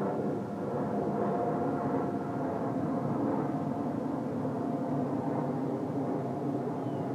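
Distant outdoor warning siren sounding a steady tone, fading somewhat in the second half, over a steady low background noise.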